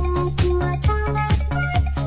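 Electronic dance music with a steady beat, a little over two kick drum hits a second, over a bass line and short synth notes.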